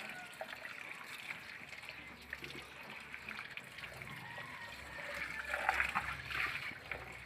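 Tap water running and splashing over pechay (bok choy) leaves being rinsed by hand into a plastic basin, with the splashing louder about five to six seconds in.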